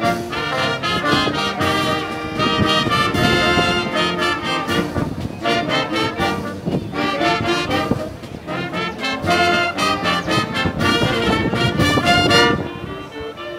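A wind band of brass and saxophones playing a melody in full harmony, trombones and trumpets prominent, going softer near the end.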